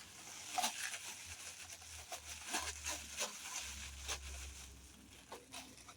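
Plastic packaging and bubble wrap crinkling and rustling in irregular crackles and light clicks as packed parts are handled and pulled from a box.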